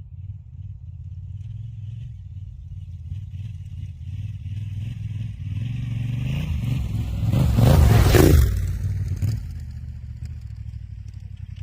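Yamaha Ténéré 700's parallel-twin engine running through a Fresco aftermarket exhaust. It builds steadily to one loud, brief peak about eight seconds in, then drops back to a low, steady run.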